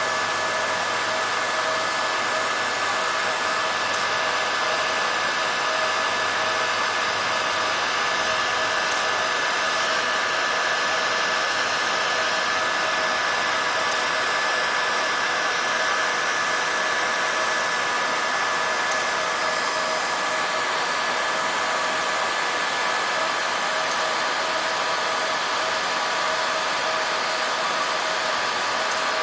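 Hot air gun blowing steadily, with a steady whine from its fan motor, heating a car roof's paint so that it blisters for stripping.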